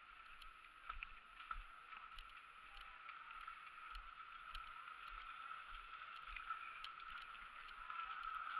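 Faint footsteps climbing a flight of outdoor stairs, soft knocks about every half second, over a steady hiss.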